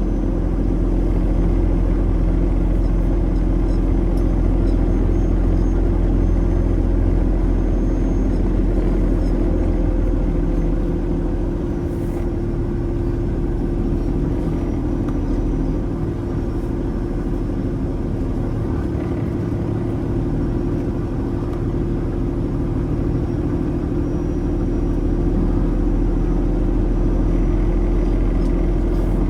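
Semi truck cruising on the road: a steady engine drone with tyre and road rumble, the low rumble easing for a while midway.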